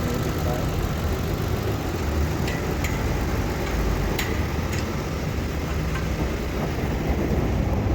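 Car engine idling steadily with the air-conditioning compressor running while the system is charged with R134a gas, with a few light clicks in the middle.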